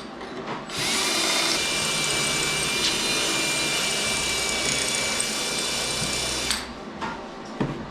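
Handheld electric drill running under load, boring into metal, starting about a second in and stopping near the end, with a steady high whine; a few light knocks follow.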